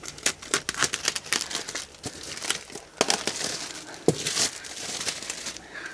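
Parcel packaging being handled and torn open: crinkling with many sharp crackles, and a couple of longer ripping stretches after about two and three seconds.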